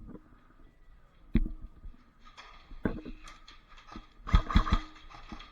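A few irregular thumps and knocks: one about a second in, one near the middle, and a quick run of three near the end, which is the loudest, over a faint rustle.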